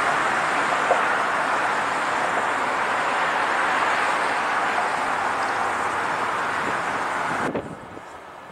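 Steady rushing noise of passing vehicles, with no engine tone or rhythm in it. It cuts off abruptly near the end, leaving a much quieter outdoor background.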